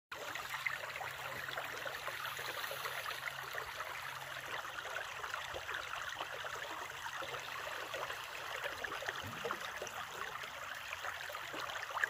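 A small, shallow brook babbling over rocks and a little spill, a steady running trickle of water.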